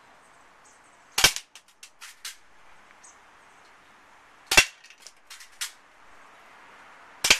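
Spring-powered HK USP .45 airsoft pistol firing three sharp shots about three seconds apart. Each shot is followed by a few lighter clicks.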